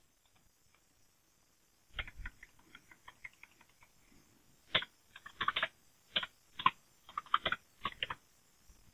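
Typing on a computer keyboard: short, irregular runs of key clicks, starting about two seconds in, with a few louder keystrokes among them.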